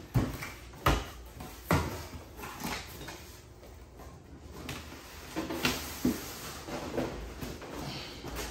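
Irregular knocks and thumps of cardboard boxes being handled and opened. The sharpest hits come in the first two seconds, with softer ones later.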